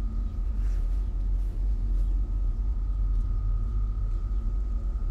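Steady low rumbling drone with a thin, high, steady tone held above it.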